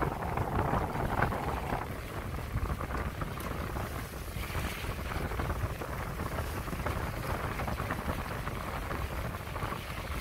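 Wind noise on the microphone over the steady rush and splash of water along the hull of a Hunter 356 sailboat moving through choppy water, a little louder in the first couple of seconds.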